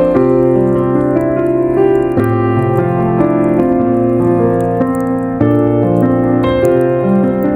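Background piano music: sustained chords and notes changing every second or so.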